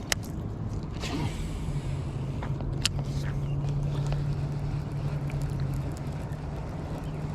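A steady low motor hum, with two sharp clicks and a brief swish about a second in.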